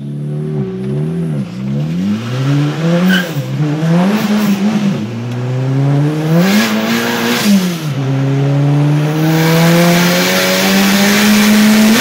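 Mk5 VW GTI's big-turbo four-cylinder engine, running about 25 psi of boost, accelerating hard and heard from inside the cabin. The engine note climbs and falls back several times through the gears, then makes one long rising pull in the second half as a high rushing hiss builds over it.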